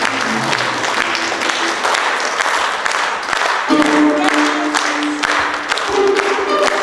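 Audience applauding, with stage music playing under it; held music notes come in a little past halfway.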